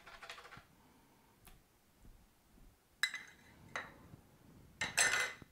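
Metal spoon and stainless steel measuring cup knocking together as the last bouillon paste is scraped off: a soft scrape at first, then a few sharp, ringing clinks in the second half, the loudest near the end.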